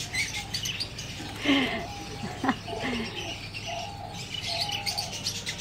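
Fantail pigeons cooing softly among scattered bird chirps.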